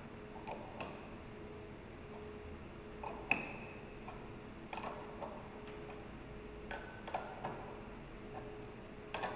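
Open-end spanner clinking against a steel flush connection fitting as it is fitted and turned: scattered short metallic clicks, the loudest about three seconds in with a brief ring.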